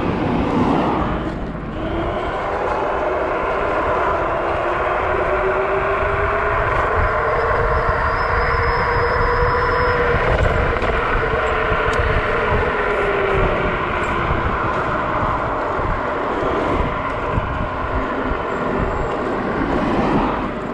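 Dual Pro (Dragon Lightning V2) electric scooter's twin hub motors whining under hard acceleration to about 60 km/h, the whine climbing in pitch for several seconds and then falling as it slows, over heavy wind rumble on the microphone.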